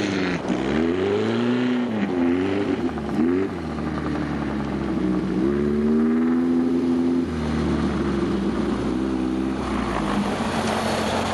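A VW-engined sandrail's engine revving hard, its pitch rising and falling several times as it accelerates and lets off. It then runs at a steadier, lower pitch for the last few seconds.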